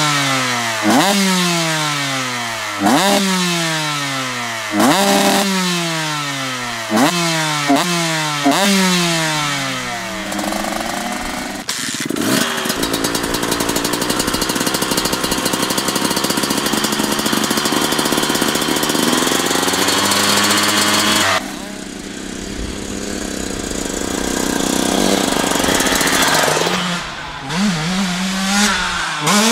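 Motocross bike engines revving hard again and again, each rev snapping up sharply and then falling away, about every two seconds. Then one engine is held at a steady high rev for several seconds and cuts off abruptly. Another bike builds up revs near the end.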